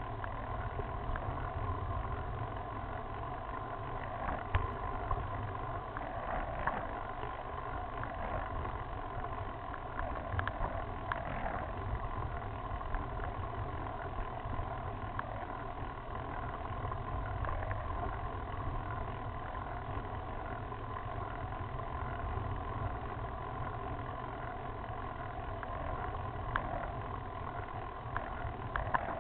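Road bike climbing a rough, patched mountain road, heard through a camera mounted on the bike: a steady low rumble of tyre and road vibration with a hiss, and a few small knocks and rattles.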